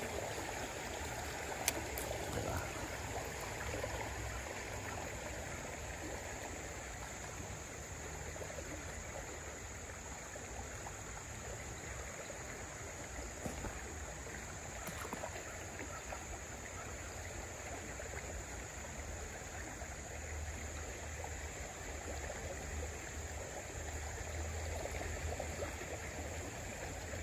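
Shallow creek current running over a rippled bed, a steady rush of water, with an occasional faint click.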